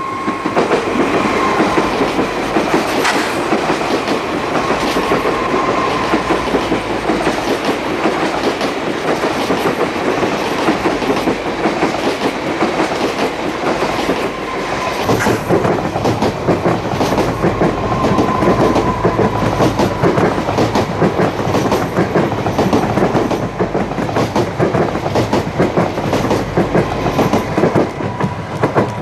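An SNCF AGC regional railcar running on diesel power passes close by, its engines running under the clicking of wheels over rail joints. About halfway through, a longer train of several coupled AGC units runs by, with more low rumble.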